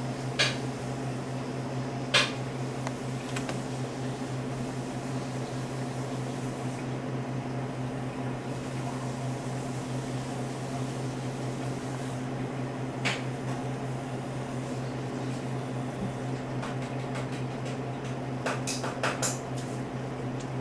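Steady low mechanical hum, like a fan or appliance, with a few sharp clicks over it: one near the start, one about two seconds in, one past the middle and a quick cluster near the end.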